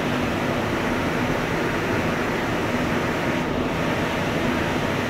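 Steady drone of industrial plant machinery running, an even noise with a low hum underneath.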